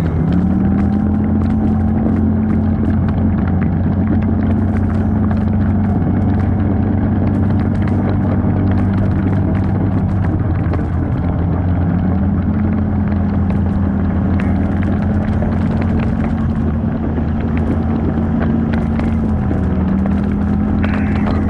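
Off-road 4x4's engine running steadily under way, its pitch dipping briefly and recovering a few times as the throttle eases and comes back on, with scattered light clicks over it.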